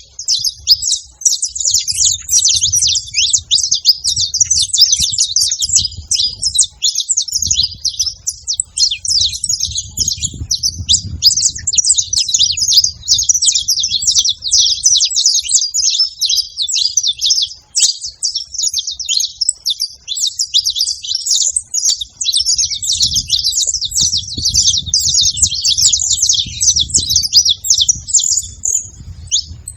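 Saffron finches, male and female, chirping and calling rapidly and without a break, several birds at once. A faint low rumble comes and goes underneath.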